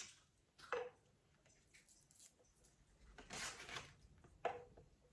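Faint unpacking sounds: a light knock under a second in, a brief plastic rustle about three seconds in, and another light knock near the end.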